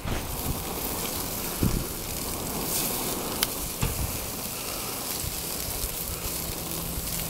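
Ribeye steaks and bratwursts sizzling on a hot grill: a steady crackling hiss, with a few light clicks and knocks.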